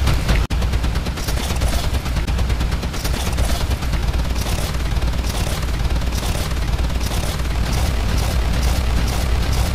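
Dense, heavily distorted wall of noise from a clip's audio stacked on itself many times over, with a constant heavy bass and a crackling texture like rapid gunfire. It cuts out for an instant about half a second in.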